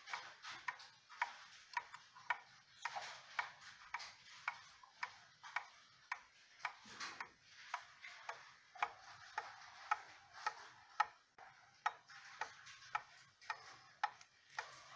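Skeleton wall clock's German 8-day mechanical movement ticking evenly, about two ticks a second.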